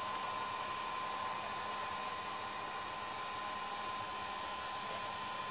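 Electric heat gun running steadily: an even fan-and-air hiss with a constant whine.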